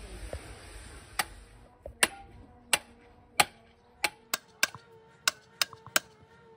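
Hammer blows on metal, each leaving a short metallic ring, spaced about a second apart at first and quickening to two or three a second. A steady hiss stops about a second and a half in.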